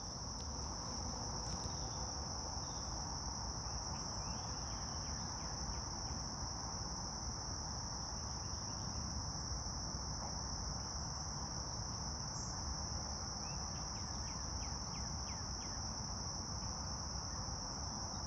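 Steady, high-pitched insect chorus of crickets, unbroken, over a low hiss of outdoor background noise, with faint short chirps now and then.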